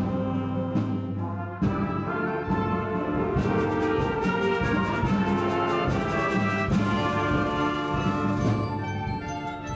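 High school concert band playing sustained chords with brass prominent; the higher parts drop out and it grows a little softer near the end.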